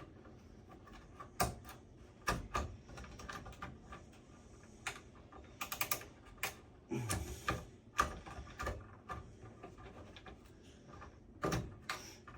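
Irregular clicks and light knocks of hands working a CPU cooler loose from a computer, with a quick run of clicks about six seconds in.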